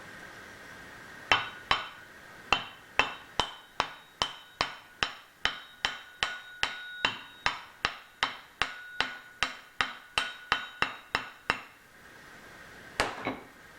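Hammer tapping steadily on metal, about two to three blows a second for some ten seconds, with a ringing tone carrying between strikes, driving a shaft into its bearings; two more blows near the end.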